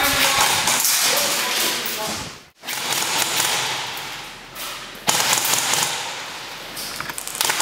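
Airsoft guns firing indoors: sharp snapping shots over a loud clatter of noise, which cuts out briefly about two and a half seconds in.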